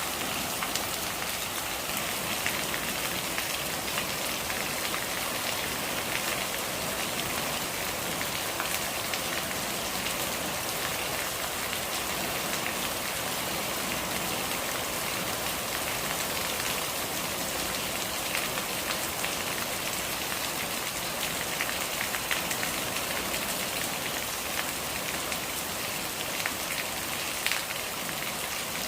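Steady rain falling on a surface: a dense, even patter of drops, with single sharper drop hits standing out here and there.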